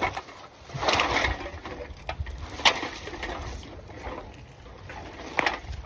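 Litter picking: a plastic rubbish bag rustling and drink cans being handled, with a few sharp clicks and knocks, over a low rumble.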